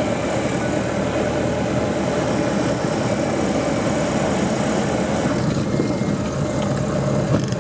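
Steady drone of a 1973 Cessna 177B Cardinal's four-cylinder engine and propeller running, with a rushing noise over it that eases a little about five and a half seconds in.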